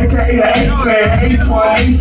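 Live hip hop through a club PA: a rapper's vocals over a loud, bass-heavy beat.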